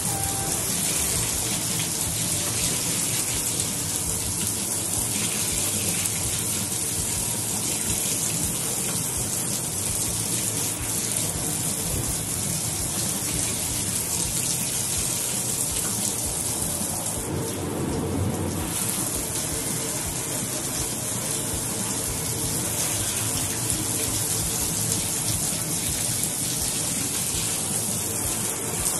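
Steady spray of water washing out the inside of a grill, with a brief dip in the hiss about two-thirds of the way through.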